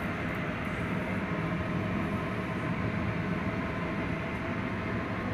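Steady, unchanging mechanical drone with a rushing noise, like a running machine or fan.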